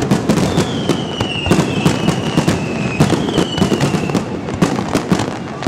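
Aerial firework shells bursting in quick succession, a dense run of bangs and crackles. Twice, a high whistle falls slowly in pitch among the bursts.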